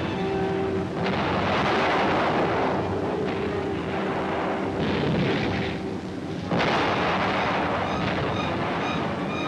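Heavy rumbling blasts over an orchestral film score. One surge comes about a second in and a sharper one starts suddenly at about six and a half seconds.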